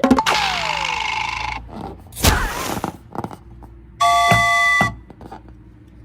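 A run of edited-in sound effects: a hissing burst with a falling whistle, a short whoosh, then a steady electronic chime-like tone lasting about a second near the end.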